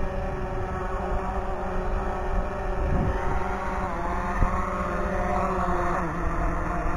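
Drone motors and propellers whining, the pitch sliding up and down as they change speed, over a low rumble of wind on the microphone.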